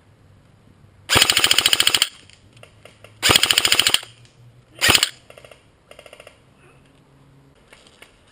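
G&G blowback electric airsoft AK47 firing full-auto: two rapid bursts of about a second each, then a short burst about five seconds in, followed by fainter bursts of rapid fire.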